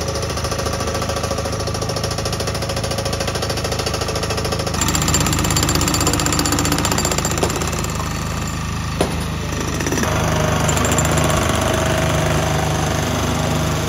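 Demolition breaker (jackhammer) hammering on concrete rubble with a rapid, steady beat, over the steady running of a power unit's engine. The sound changes character about five and ten seconds in.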